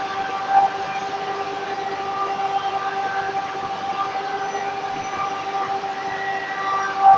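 Cross-cut saw running with a steady whine from its spinning blade and motor as it is drawn through a balsa wood block; it grows louder near the end.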